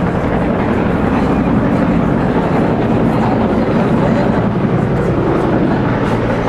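Steady loud background noise: a low rumble with indistinct voices mixed in.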